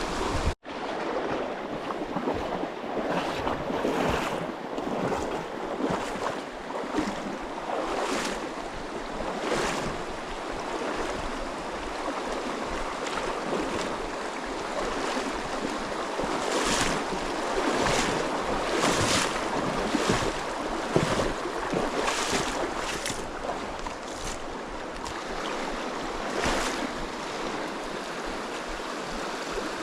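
Mountain stream rushing steadily, with gusts of wind on the microphone.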